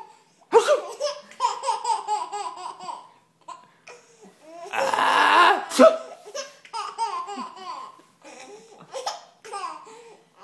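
A baby laughing in runs of quick high-pitched giggles. About five seconds in, a loud sneeze breaks in, and the giggling starts again.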